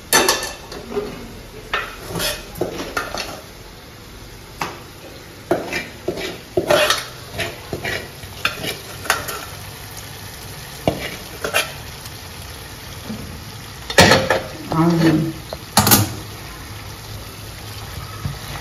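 Metal spatula scraping and knocking against a nonstick kadai as gongura leaves are stirred into chicken, with frying sizzle underneath. The strokes come irregularly, and two louder knocks against the pan come near the end.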